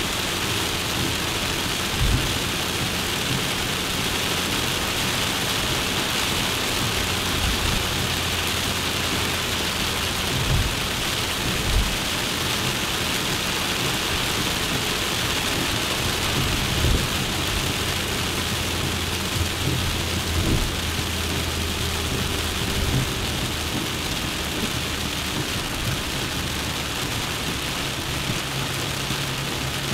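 A moving Suzuki Jimny: steady road and wind hiss over a low engine hum, with a few short low thumps.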